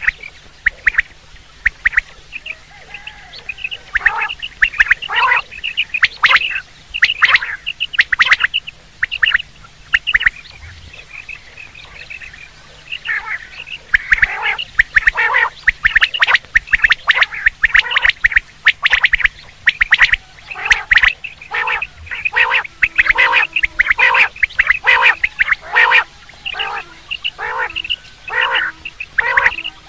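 Quail calling, the kind of quail call recording played to lure quail in the hunting season: quick series of short, sharp notes in clusters, with a lull about ten seconds in and then a denser, faster run of calls. A faint steady low hum lies underneath.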